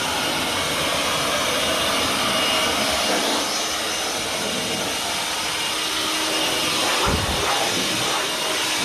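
A steady rush of blown air clearing dust and debris out of a long-stored car's engine bay, with a dull thump about seven seconds in.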